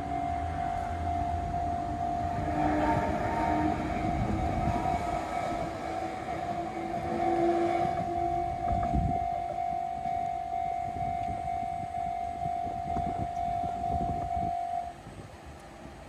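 A Japanese railway level-crossing warning bell rings steadily and stops suddenly about fifteen seconds in. Meanwhile an Enoden electric train rumbles and clatters over the crossing, loudest around the middle and again shortly before the bell stops.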